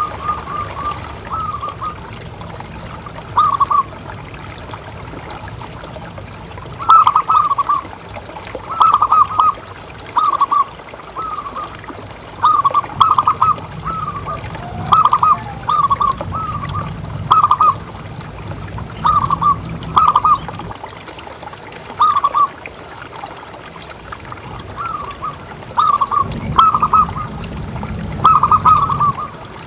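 Zebra dove cooing: short bursts of quick, stuttering coos, repeated every second or two.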